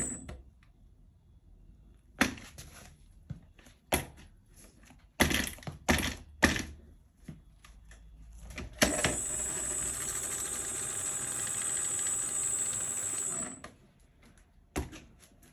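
Xiaomi Pro 2 electric scooter front wheel: a series of sharp knocks and clicks, then about five seconds of the front hub motor running with a high whine and a rough noise that cut off suddenly. These are the weird sounds that the owner suspects come from worn bearings.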